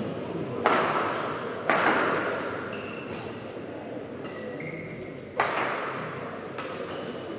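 Badminton rackets striking the shuttlecock in a rally: three sharp hits, about a second in, a second after that, and again past five seconds, each dying away in the hall's echo.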